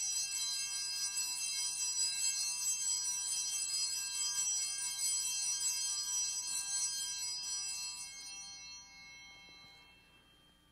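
Altar bells rung at the elevation of the chalice after the consecration, a bright many-toned jingling ringing that keeps going for about eight seconds, then dies away near the end.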